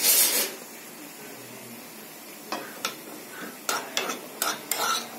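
A metal spoon scraping and clinking against a small steel pan while stirring cashews frying in ghee. There is a scrape at the start, a lull of about two seconds, then a run of quick clinks and scrapes.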